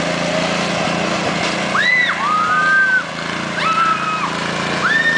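Small engine of a riding garden tractor running steadily as it tows a loaded wagon. From about two seconds in, the girls riding in the wagon let out high-pitched squeals three or four times.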